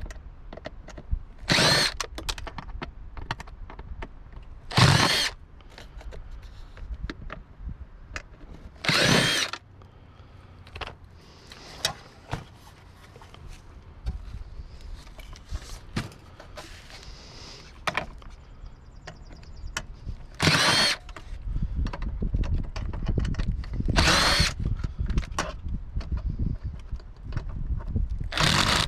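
Power drill running in several short bursts of about a second each, a few seconds apart, while a water cooler is taken apart for scrap, with small clicks and clatter of parts between the bursts.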